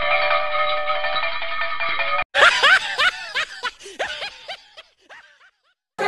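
Comedy sound effects edited in: a held electronic chord for about two seconds, cut off suddenly. Then comes a quick run of bouncing, wavering pitch sweeps that fades away.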